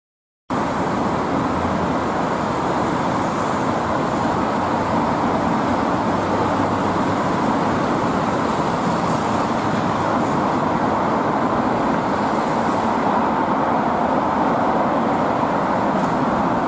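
Steady city road traffic noise from cars and trucks on a multi-lane street, starting abruptly about half a second in.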